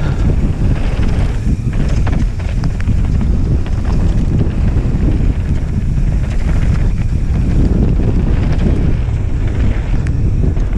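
Wind buffeting the action-camera microphone during a fast mountain-bike descent on a dirt downhill trail, with tyre rumble and scattered clicks and rattles from the bike.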